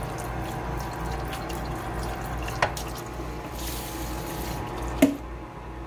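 Kitchen faucet running water onto a stainless steel pan held in the sink, a steady rinsing splash. Two sharp knocks break in, a small one about two and a half seconds in and a louder one near the end.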